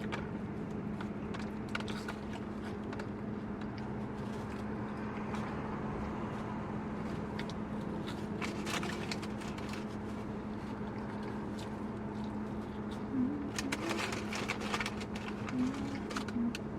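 Steady low hum inside a parked car's cabin, with scattered crinkles and small clicks of food wrappers being handled, a cluster of them about halfway through and another near the end.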